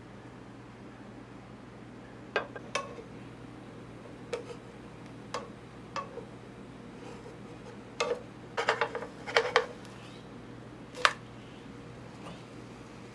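Wooden spatula tapping and scraping against a nonstick frying pan while prodding and lifting the edge of a thin crepe: short sharp knocks, single at first, then quick clusters a little past the middle, with the loudest one near the end. A low steady hum runs underneath.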